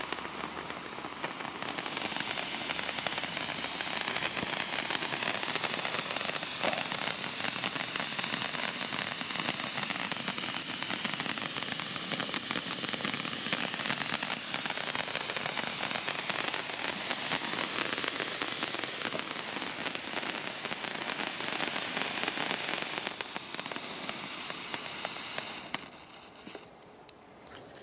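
BP30S Glow Party stick fountains, several pushed into the ground and burning at once, giving off a steady hissing and crackling as they spray sparks. The sound dies down near the end as they burn out.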